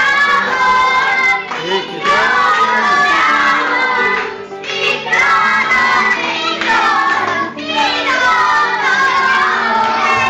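Children's voices singing a song together over instrumental backing, in phrases with short pauses between them.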